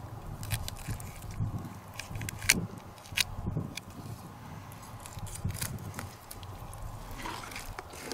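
Fillet knife slicing through northern pike flesh along the Y-bones, giving irregular small clicks and crackles as the blade catches on the bones.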